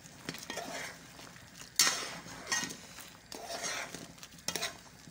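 A metal spoon stirring thick ogbono soup in a metal pot: a wet, scraping swish with each stroke, about once a second, with light clinks of the spoon against the pot.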